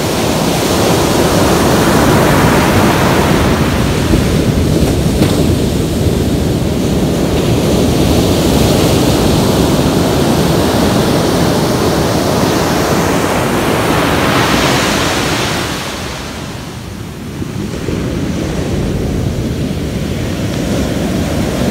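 Ocean surf breaking and washing up onto a sandy beach in a steady rush, easing briefly about three-quarters of the way through before the next wave builds.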